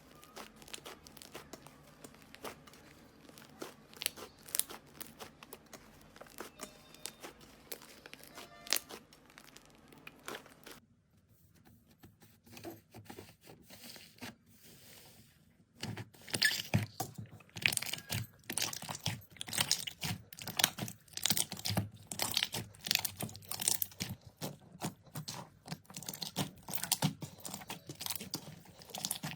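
Slime being worked, crackling and popping in quick clicks. Faint and sparse at first, nearly quiet for a few seconds around the middle, then loud and dense crackling from a little past halfway.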